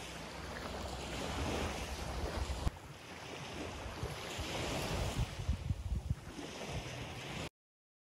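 Sea waves washing on the shore in surging swells, with wind buffeting the microphone. The sound cuts off abruptly near the end.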